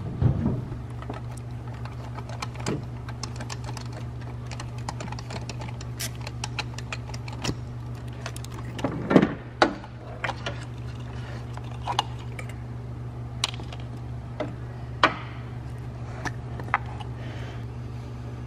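Scattered clicks and light knocks of a ratchet, socket extension and coil packs being handled as the spark plugs are taken out of a Honda K20A2 engine, over a steady low hum. The busiest run of clicks comes about halfway through.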